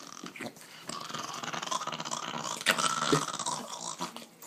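Pet dog growling on cue: a continuous raspy grumble that starts about a second in, swells near the middle and fades out just before the end.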